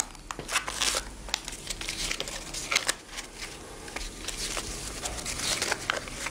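Paper banknotes rustling and crinkling as they are taken out of a wallet and handled, in a string of short, irregular crackles.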